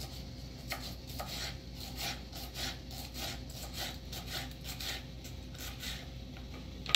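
Kitchen knife slicing a yellow bell pepper into thin strips on a wooden cutting board, each stroke knocking on the board in a quick, even rhythm of about three cuts a second.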